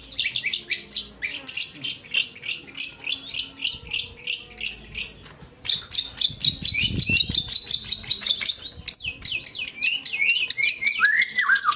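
Long-tailed shrike and white-rumped shama singing against each other: a fast, unbroken run of short, high chattering and whistled notes, with a brief low thud about seven seconds in.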